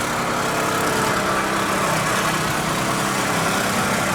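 A motor running steadily: an even low hum under a constant hiss, with no change in level.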